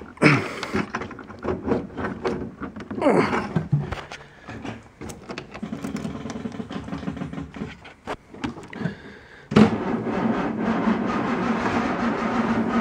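Austin-Healey engine being started cold on the choke: the starter cranks in several tries, then about three-quarters of the way through the engine catches suddenly and keeps running.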